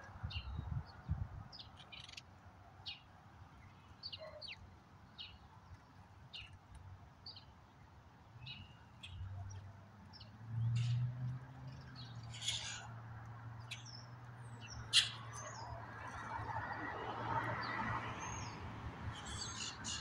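Small songbirds chirping: short, scattered high chirps and calls throughout. A low steady hum comes in about halfway through, with a soft rush of noise near the end.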